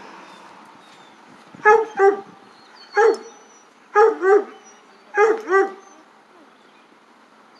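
An animal gives seven short, loud, bark-like calls, mostly in quick pairs about a second apart. Faint thin high peeps sound behind them.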